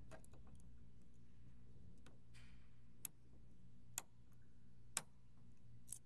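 Lock pick and turning tool working in a 2013 Ford Mustang's door lock cylinder: a few faint clicks, then four sharp metallic clicks about a second apart from about halfway through, over a steady low hum.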